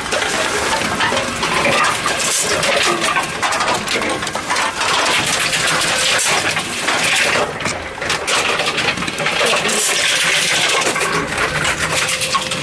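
Tomra T-63 reverse vending machines taking in returned cans and bottles: a continuous loud clatter and rattle of containers moving through the machines.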